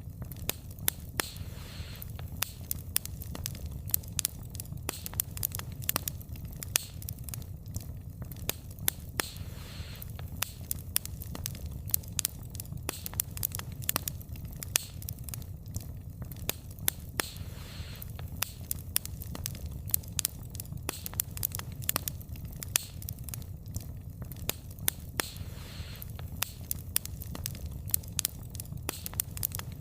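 Wood fire burning, a steady low rumble with frequent sharp irregular crackles and pops of the burning logs.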